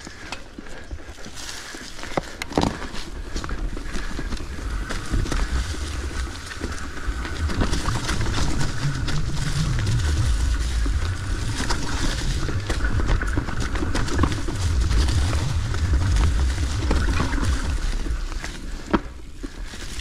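Mountain bike rolling over a trail covered in dry leaves: tyres rustling and crunching through the leaves, with scattered knocks and rattles from the bike over roots and rocks, a sharp knock near the end, and low wind rumble on the microphone that grows heavier as speed picks up.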